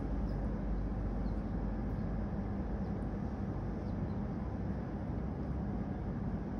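Steady low rumbling room noise with a faint hiss and a few faint ticks, in a large tiled hall with no one speaking.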